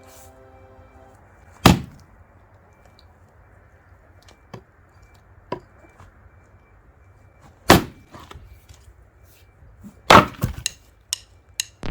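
Firewood being split with an axe: three heavy, sharp strikes, about a second and a half, eight and ten seconds in, the last followed by a quick clatter, with a few lighter knocks of wood between.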